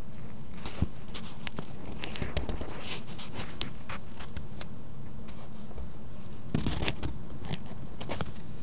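Handling noise from hands at the recording phone: scattered clicks, taps and short rustles, over a steady low hum and hiss.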